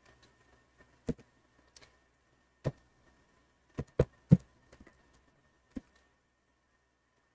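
Computer keyboard keys pressed one at a time: about half a dozen separate sharp clicks, three in quick succession about four seconds in, as a command and a password are entered.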